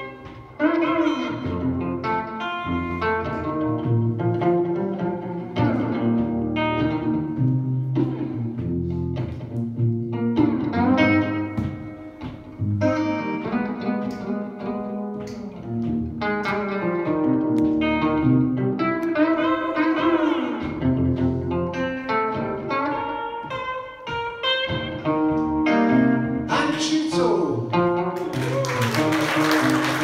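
Instrumental passage on an electric guitar played lap-style with a slide, a melody of single notes that often glide in pitch. Near the end a broad rush of noise joins the music.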